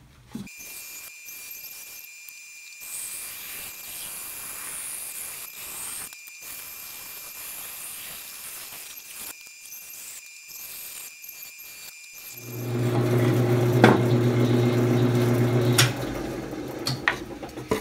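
Benchtop bandsaw cutting a curved rocker out of a pine board, a steady high whine with a hiss of the blade in the wood. About twelve seconds in a much louder low hum starts, lasts about three seconds and stops suddenly, followed by a few sharp knocks as the cut piece is handled.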